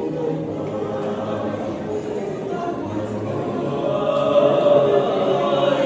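Male vocal trio singing a cappella in close harmony, holding long sustained chords that swell louder about four seconds in.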